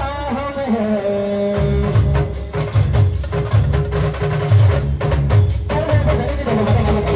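A brass band playing: drums and percussion keep a steady, rapid beat under a melody note held for several seconds.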